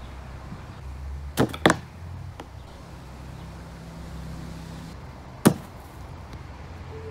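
Thrown cornbag striking the wooden Cornbowl board and its white plastic-pipe pins: two sharp knocks close together about a second and a half in, and one louder crack about five and a half seconds in.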